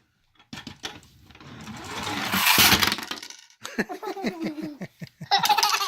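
A young child making play sound effects with his voice while playing with a toy car. There is a loud breathy hiss that swells and fades, then sliding vocal noises and a short burst, over a few light plastic clicks of the toy.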